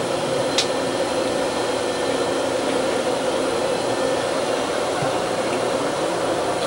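Steady machinery noise of a steam-turbine frigate's engineering plant, an even din with a constant hum, heard from inside the engineering control station. A single sharp click comes about half a second in.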